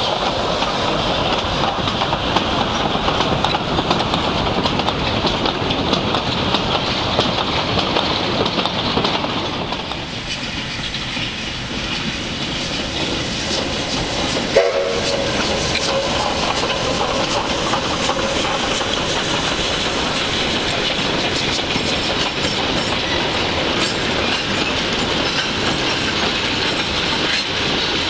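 A train of wooden goods wagons rolls past close by with a dense wheel clatter on the rails. After a cut, a Victorian Railways J class steam locomotive works a load train past, its wagons clattering along behind it.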